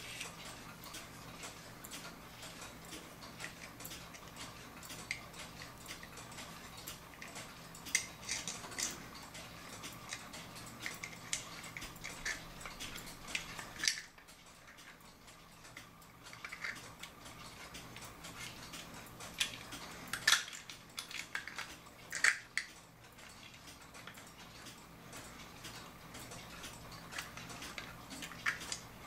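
Small brass clock gears and steel arbors clicking and clinking against one another and the wooden plates as a wood-plated clock movement is fitted together by hand, with sharper clinks about 8, 14, 20 and 22 seconds in. A clock ticks steadily and faintly underneath.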